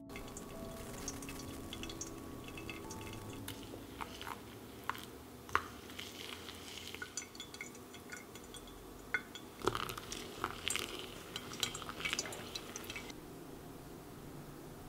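Scattered light clinks and knocks of glass and metal coffee ware: a stainless gooseneck kettle and a glass pour-over dripper and server being handled. The clinks start a few seconds in and stop shortly before the end.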